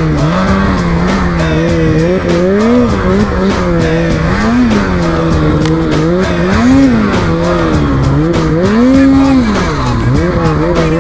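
Snowmobile engine running hard under throttle, its pitch rising and falling again and again as the rider works the throttle, with the biggest surges about 3, 4½, 7 and 9 seconds in.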